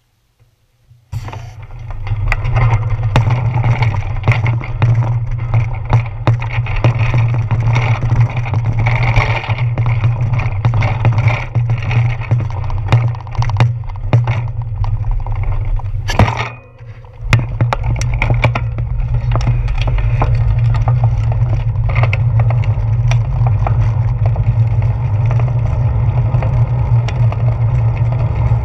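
Bicycle ride noise picked up by a handlebar-mounted GoPro Hero 4: a steady, loud low rumble of wind and road vibration, with frequent clicks and rattles from bumps in the pavement. It starts about a second in, and dips briefly about two-thirds of the way through before resuming.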